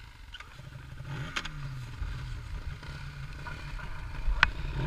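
Snowmobile engine running at low revs, its low hum wavering slightly in pitch as the sled creeps forward through powder. Two sharp clicks, one about a second and a half in and a louder one near the end.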